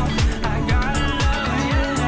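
Background pop music with a steady, driving beat.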